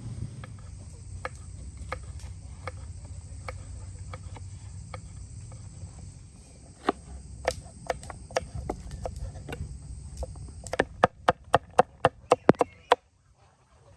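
Knife chopping on a cutting board: scattered single cuts, then a quick run of about a dozen sharp chops near the end, roughly five a second, that stops suddenly.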